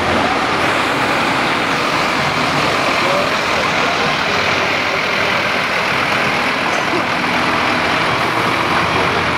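Scania fire trucks' diesel engines running as the trucks drive past one after another, a steady, continuous engine and road noise.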